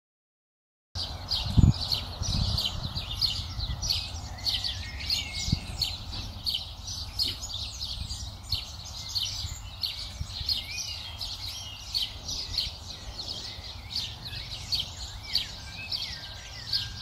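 Many small birds chirping rapidly and without pause over a steady low rumble, starting suddenly about a second in. Two low thumps come shortly after the start.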